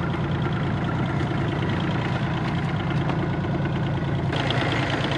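Fishing boat's engine idling steadily, a low even hum.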